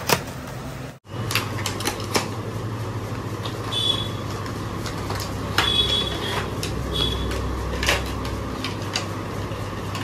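A cardboard product box being opened by hand and the plastic-wrapped tripod inside being handled: scattered clicks, scrapes and plastic crinkles over a steady low hum, with a brief dropout about a second in.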